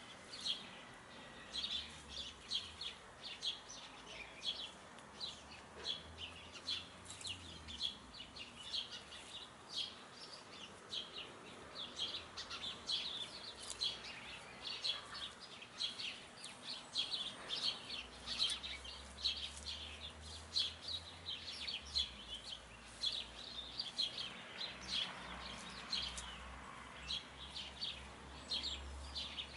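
Dense, irregular chirping of small birds: several short, high chirps a second.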